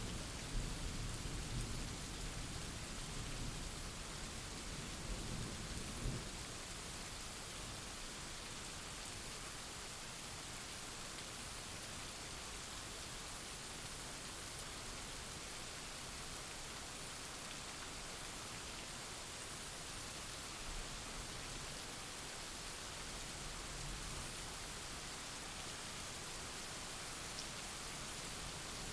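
Steady heavy rain with thunder rumbling, the rumble dying away over the first several seconds and leaving an even hiss of rain, with a faint further roll of thunder later on.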